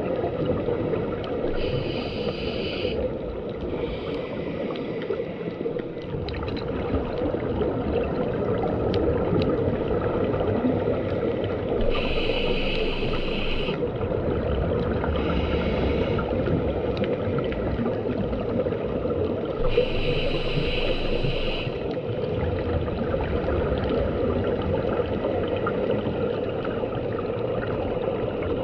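Muffled underwater rumble picked up through a GoPro housing, with a scuba diver breathing through a regulator: hissing, bubbling bursts of a second or two come in pairs three times.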